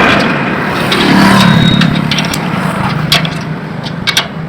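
Metal clinks and scraping of hand tools on the Bolero's front anti-roll bar clamp and bolt, with several sharp clicks in the second half, over a steady low hum.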